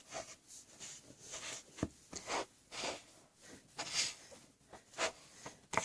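Squishy play sand being handled by hand: soft, irregular rustling and scraping, with a sharp tap about two seconds in and another near the end.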